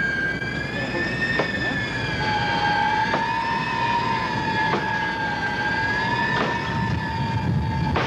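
Eerie horror-film soundtrack drone: two held, slightly wavering high tones, the lower one joining about two seconds in, over a low rumble with a few faint clicks.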